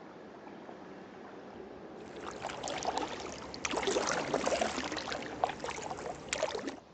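Double-bladed paddles of a two-person folding kayak dipping and pulling close by: water splashing and trickling off the blades in quick irregular strokes, starting about two seconds in over a fainter steady water sound and cutting off abruptly near the end.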